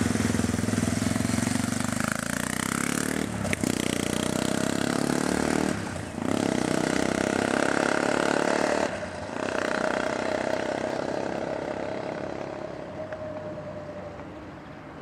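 Yamaha MT-03's single-cylinder engine through a Takkoni slip-on silencer, accelerating hard away, rising in pitch and shifting up three times. It fades steadily into the distance over the last few seconds.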